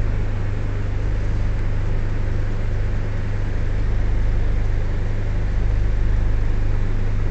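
Steady deep rumble with a hiss over it inside an air-conditioned Shatabdi Express chair car coach.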